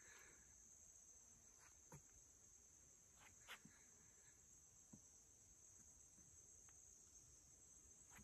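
Near-silent woods with a faint, steady, high-pitched insect chorus, and a few faint ticks.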